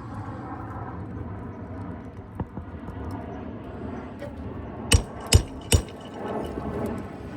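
Three quick hammer blows, a little under a second in all, about five seconds in: a roofing nail being driven back in under a lifted asphalt shingle, struck through a roof snake bar.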